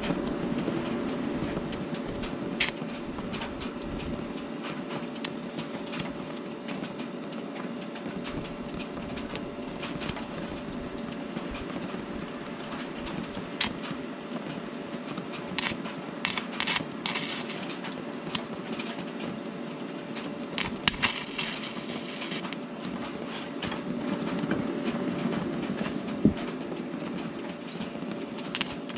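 Stick welding with a thin 1.6 mm rutile electrode: the arc crackling and hissing continuously, with scattered sharper crackles.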